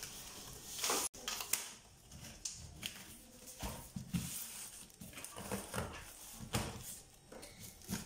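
Scattered short scrapes, rustles and knocks of a cardboard carton and its loose plastic packing strap being handled as the box is opened.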